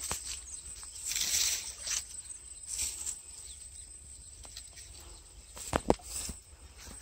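Dry grass and water weeds rustling as a hooked catfish is landed by hand at the bank, with a few sharp knocks and slaps near the end.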